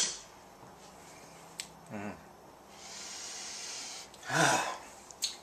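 A man drawing in the smell of the stew with a long sniff, then letting out a breathy, voiced sigh about four seconds in, which is the loudest sound. A short hum comes about two seconds in, and a light utensil click near the start and again near the end.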